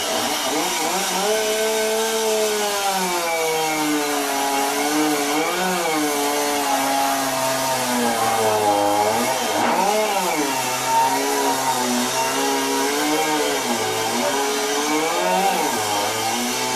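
Modified two-stroke competition chainsaw running hard under load, its engine pitch wavering up and down continuously as it works through the cut.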